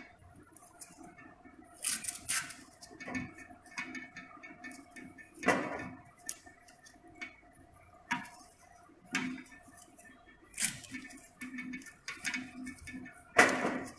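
Masking tape being pulled off the roll in short rips and wrapped around the condenser inlet joint, with scattered handling knocks and rustles against the steel condenser tank. A faint steady hum runs underneath.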